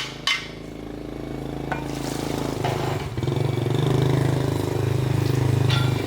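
Two sharp hammer blows at the very start, then an engine running steadily, growing louder over the first few seconds.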